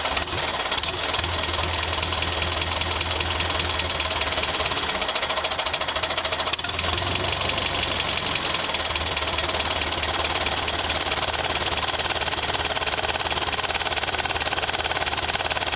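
Toy model tractor's motor running steadily as it drives, a mechanical drone with a fast, even pulse.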